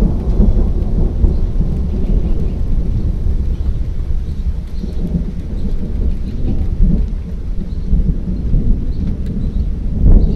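Thunder rumbling low and continuously, rolling and swelling louder about ten seconds in.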